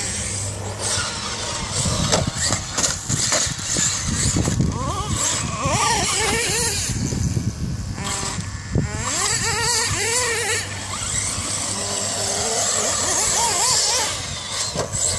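Radio-controlled off-road car's motor revving up and down in quick rising and falling sweeps with the throttle as it drives over the dirt track.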